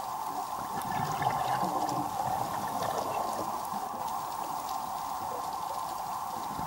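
Underwater ambience: a steady hiss with faint scattered crackling clicks throughout, slightly louder for a second or so near the start.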